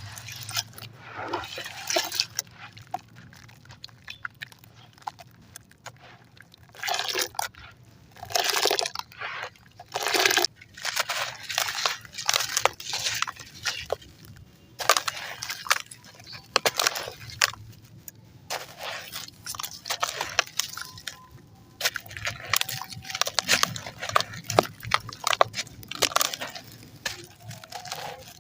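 Concrete and ash pieces being crumbled and crushed, giving irregular gritty crunching and crackling in short runs, louder for a few strokes about a quarter of the way in.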